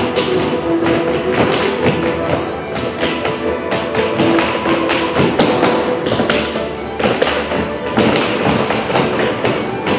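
Irish dancers' shoes tapping and stamping out quick rhythms on a hard floor, over music with a steady melody.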